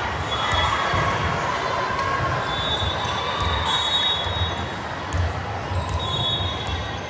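Volleyball gym hubbub: indistinct crowd chatter with repeated dull thuds of balls and short high squeaks of sneakers on the court floor.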